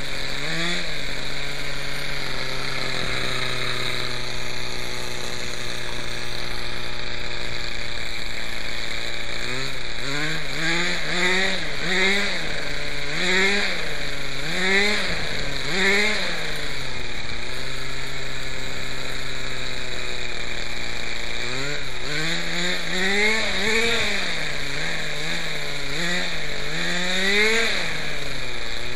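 Small glow-fuel engine of a Quickie 18 RC helicopter running at a steady high idle, then blipped up and down in quick throttle bursts about once a second, a short steady spell, then another run of blips near the end. It will not settle to a low idle and needs a lot higher throttle to keep running.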